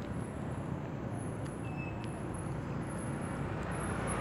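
Steady outdoor background rumble and hiss, with a few faint clicks.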